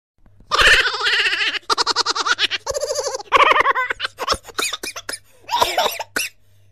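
High-pitched laughter in rapid pulses, with a few short bursts of voice and sharp clicks after it.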